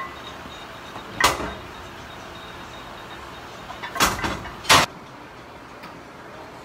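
Three short, sharp exhales from a lifter pressing a loaded barbell overhead: one about a second in, then two close together about four seconds in as the bar is driven up.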